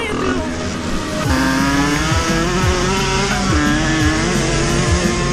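A 50cc offroad moped engine running hard as it is ridden, getting louder about a second in, with background music and a regular bass beat underneath.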